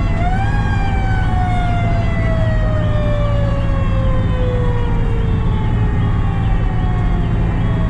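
Fire truck's mechanical siren winding down, its pitch falling slowly after a brief push back up just after the start. Under it is a steady low engine drone, and a fainter siren tone repeats in a stepped up-and-down pattern.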